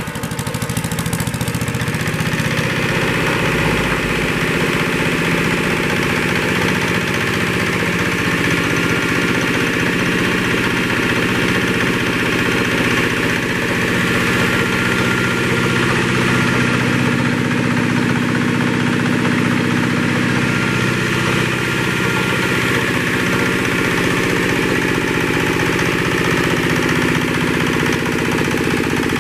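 Saw bench's small air-cooled diesel engine running steadily off load, the cut just finished.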